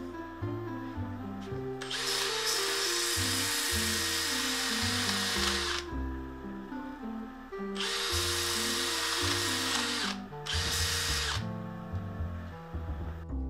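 Background music, with a power tool running in three bursts over it: a long one of about four seconds, a shorter one of about two seconds, then a brief one of about a second.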